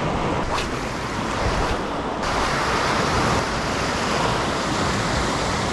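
Sea waves breaking and washing over coastal rocks, a steady rush of surf.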